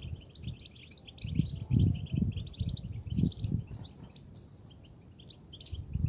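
European goldfinch twittering: a dense run of quick, high chirps and trills, with dull low thumps now and then underneath.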